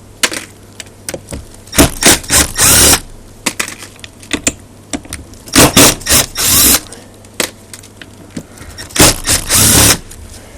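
Power screwdriver running in three short bursts of about a second each, undoing the screws of an Emotator 1200 rotator's base plate, with small clicks between the bursts.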